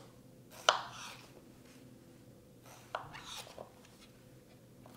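Kitchen knife cutting through halves of yellow summer squash and knocking against the cutting board: one sharp knock under a second in, then a few lighter taps around three seconds in.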